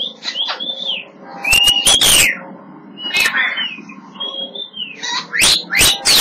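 African grey parrot whistling and chirping: a string of short arching whistles, with sharp clicks about two seconds in and again near the end.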